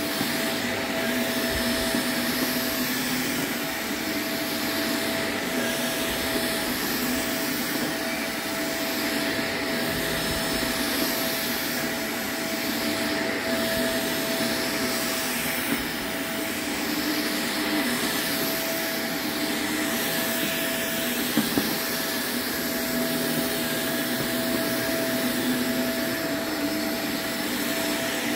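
Shark upright vacuum cleaner running steadily as it is pushed across a shag rug: a constant motor tone over the rush of air, with two brief clicks about three-quarters of the way through.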